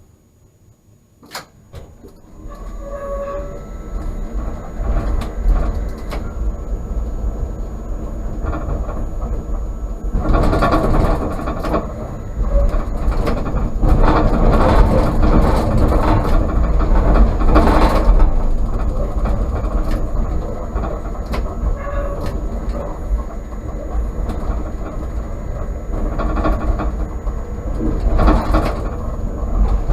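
A tram running on its rails, a low rumble with wheel-on-rail noise. It starts about two seconds in, grows louder, and is loudest around the middle.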